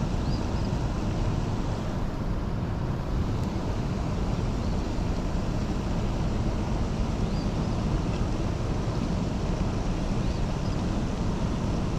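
Steady outdoor rushing noise, heaviest in the low end, with a few faint, short, high bird chirps now and then.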